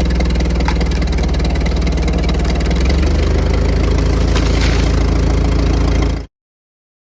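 Engine running steadily under a little load, shifting slightly in pitch about three seconds in, then cut off abruptly about six seconds in.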